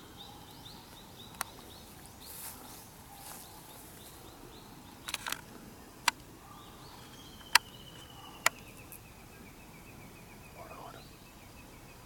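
Outdoor ambience with a few sharp clicks or snaps and some brief rustling. In the second half a long pulsed trill slowly falls in pitch.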